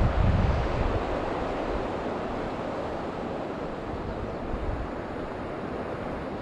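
River water rushing steadily over a shallow, stony bed around a wading angler. Wind buffets the microphone with low rumbles during about the first second.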